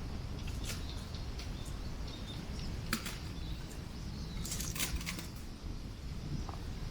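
Strong wind buffeting the microphone in a steady low rumble, with a scatter of sharp crackles and pops from a campfire that is burning down.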